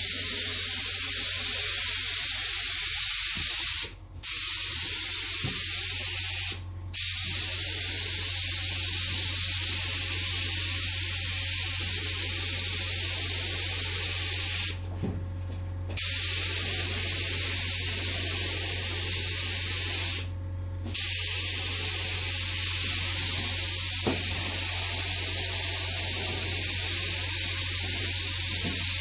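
Paint being sprayed in long, steady hissing passes, with short breaks about 4, 7, 15 and 20 seconds in. A steady low hum runs underneath.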